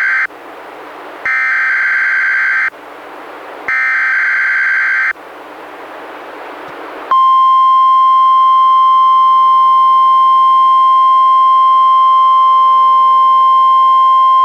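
NOAA Weather Radio Emergency Alert System test over a weather radio. First the SAME digital header: the tail of one harsh buzzing data burst, then two more bursts about a second apart, with radio hiss between them. About seven seconds in, the loud, steady 1050 Hz warning alarm tone begins and holds.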